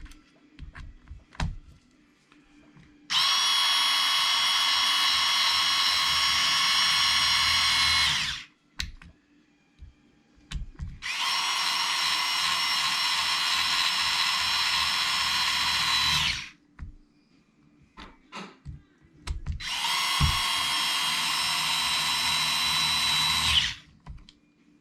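Power drill running in three steady bursts of about five seconds each, with small clicks and knocks of handling in between.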